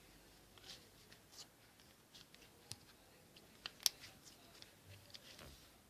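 Homemade slime being squeezed and stretched by hand, giving faint scattered sticky crackles and small pops, with one sharper pop a little under four seconds in. These are attempts at slime popping that yield only a few pops.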